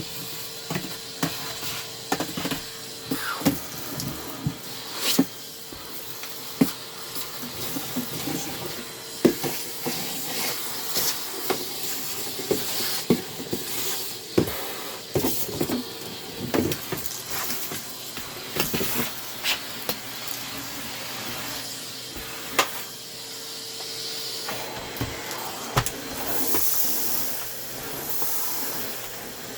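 Numatic Hetty canister vacuum cleaner running, a steady motor hum under a high airy hiss. Frequent sharp clicks and knocks run throughout, and the hiss swells louder near the end.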